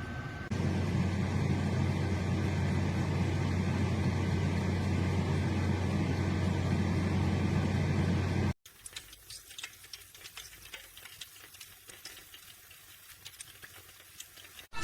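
Tower T17038 air fryer oven running: a steady fan-and-motor hum. It cuts off abruptly about eight and a half seconds in, leaving faint, irregular crackling and clicking.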